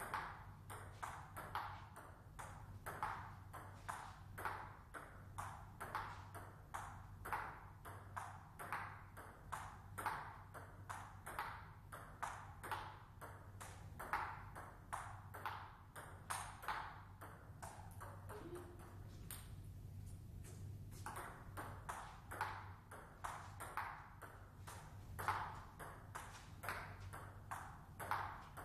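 Table-tennis rally: the ball clicking off the bats and bouncing on the table in a quick rhythm, roughly two to three hits a second, one of the bats a Hallmark Aurora blade with Meteor 8512 OX rubber. The rally stops for about three seconds past the middle, then resumes, over a steady low hum.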